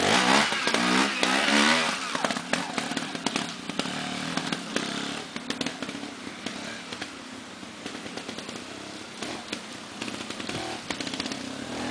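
Trials motorcycle engine revving in short rising and falling bursts as it climbs over rocks, then running quieter at low revs as the bike moves away, with scattered clicks and knocks.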